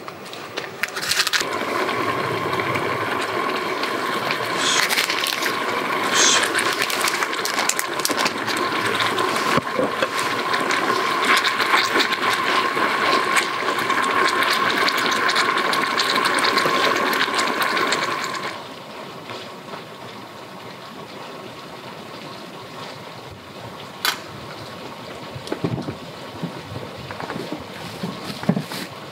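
Shrimp and mushrooms sizzling and bubbling in oil in a small pan over a stove, a dense crackle over a steady hiss. About two-thirds of the way through it drops to a much quieter background with a few light clicks.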